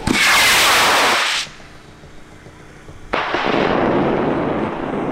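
High-power rocket motor firing at liftoff: a loud, hissing rush that starts suddenly and cuts off abruptly after about a second and a half. About three seconds in, a second, duller rush of rocket noise starts suddenly and slowly fades.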